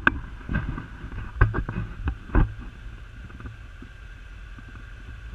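Kubota M5700 tractor's diesel engine running steadily, with several loud clunks and knocks in the first two and a half seconds.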